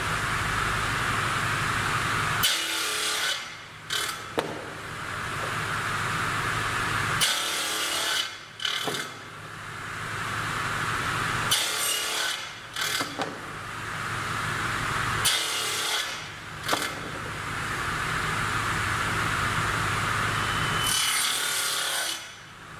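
Table saw running and cutting small blocks off a length of wood, five cuts about four seconds apart, each pass rising in pitch and loudness as the blade goes through.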